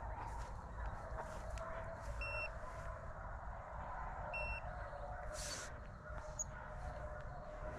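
Hunting hounds baying in the woods, their voices blending into a steady, wavering chorus over wind rumble on the microphone. Two short electronic beeps sound about two seconds apart, a little over two seconds in and again past four seconds.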